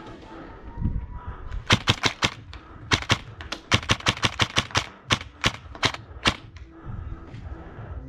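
Airsoft guns firing quick shots in short irregular bursts, about twenty sharp cracks starting about two seconds in and dying off a couple of seconds before the end.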